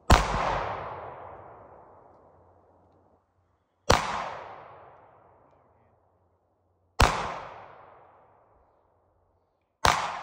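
Four pistol shots about three seconds apart, each a sharp crack followed by a long fading echo.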